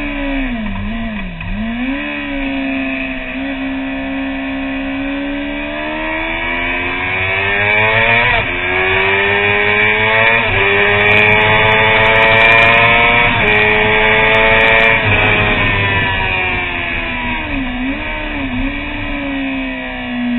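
Honda CBR600RR's inline-four engine under hard acceleration at track speed: the revs climb through the gears with sharp drops at upshifts about eight and ten seconds in, then fall away as the bike slows.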